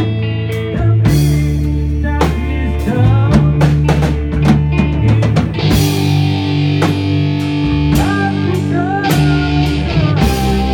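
Rock band playing live: electric bass holding low notes and a drum kit keeping the beat, with an electric guitar through a Marshall amp bending notes in the second half.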